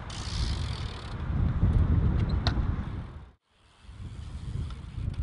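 Wind buffeting the microphone outdoors: an uneven low rumble with a light hiss above it. It cuts out abruptly for a split second about three and a half seconds in, then picks up again.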